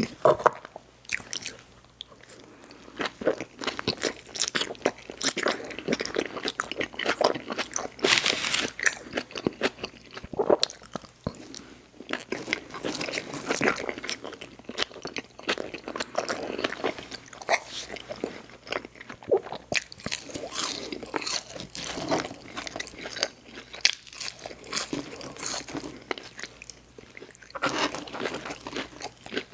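Close-miked mouth sounds of a person biting and chewing crunchy food, with irregular crackly crunches throughout.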